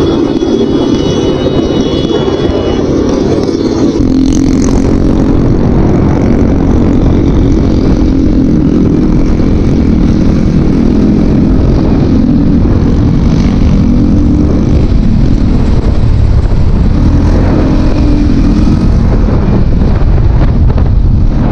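Honda motorcycle engine running while riding, a steady drone that eases off and picks up again a few times, under heavy wind rush and road rumble on the helmet-level microphone.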